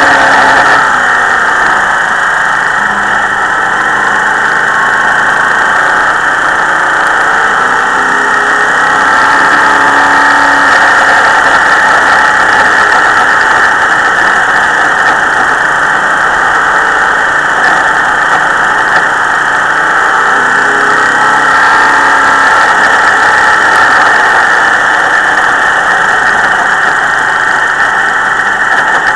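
Dirt modified race car's V8 engine, heard from an onboard camera at racing speed, loud and continuous. The engine pitch rises and falls slightly through the laps.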